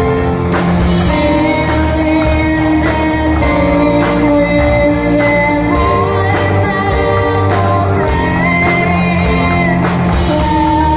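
Live rock band playing: a woman sings held notes over electric guitars, bass, drums and violin.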